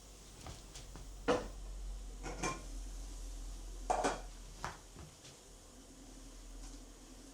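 Dishes and kitchen utensils clinking and knocking against each other as food is handled, about six separate strikes with the loudest a little over a second in and about four seconds in.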